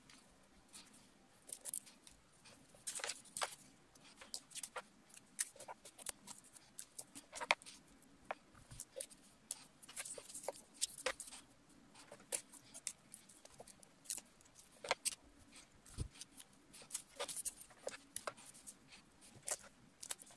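Strips of paper being handled and stuck down with sticky tape on a card: irregular light crinkles, taps and rustles, several a second at times.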